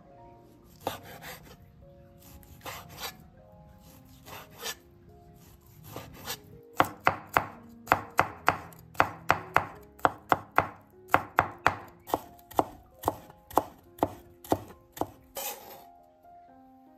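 Chinese cleaver chopping on a wooden cutting board: a few scattered knocks, then a steady run of about three strikes a second as garlic is minced.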